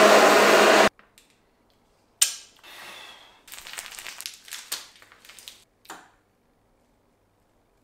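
A Braun hand blender running at full speed in a tall beaker, blending egg, garlic, mint and oil into mayonnaise, cuts off suddenly about a second in. Then a plastic piping bag is handled, crinkling and squishing in a few short, uneven bursts.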